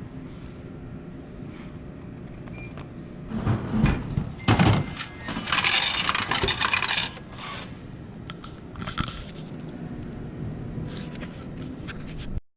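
Drink vending machine clunking and clattering as it works: a few knocks about three and a half seconds in, then a rattling clatter lasting about two seconds.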